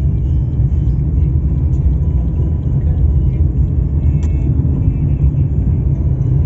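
Steady low rumble of a vehicle driving along a paved road: engine, tyre and wind noise heard from the moving vehicle.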